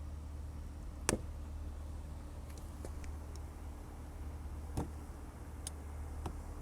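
A few sharp plastic clicks and knocks as a rocker switch is pressed into a freshly drilled hole in a mower's dash panel, the loudest about a second in, over a steady low hum.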